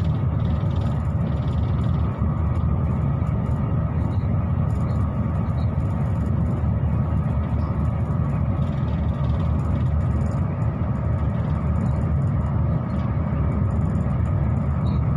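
Steady rumble of a passenger train running, heard from inside the carriage, with a faint steady whine above it.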